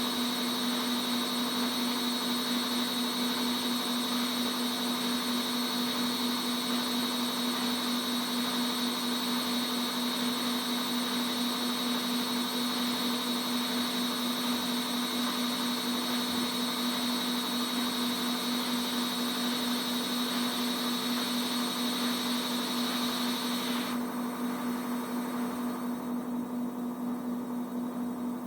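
Washing machine running with a steady whirring hum and a thin whine. The higher whirring drops away about 24 s in, leaving a lower hum.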